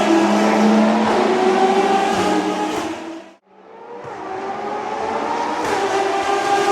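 Ferrari FXX K V12 track cars running at high revs on the circuit. The engine sound fades out sharply about halfway through, then another car's engine fades back in and grows louder.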